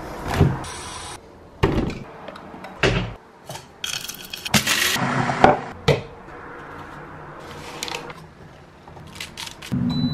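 A Gastroback glass electric kettle heating water, with scattered sharp knocks and clicks on a kitchen counter and a rushing hiss about four to five seconds in.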